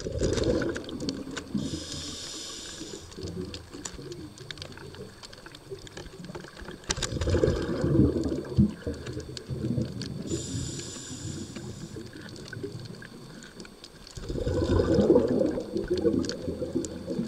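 Muffled underwater sound picked up through the camera: water moving and bubbling in three rumbling surges, with a short high hiss twice in between.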